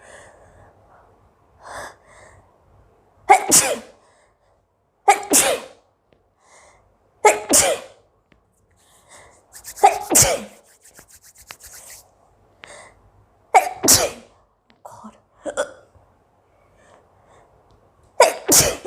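A woman sneezing repeatedly, about six loud sneezes a few seconds apart with fainter breathy sounds between, brought on by smelling chili.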